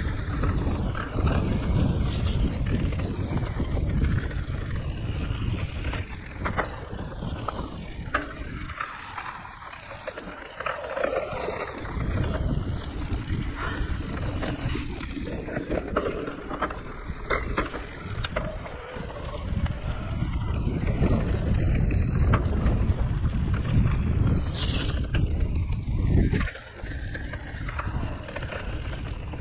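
Riding noise from a Giant Reign E+ e-mountain bike descending a rough enduro trail: wind rushing over the microphone, tyres rolling over dirt and roots, and the bike rattling, with a few sharp knocks. The noise eases briefly about a third of the way in and drops out for a moment near the end.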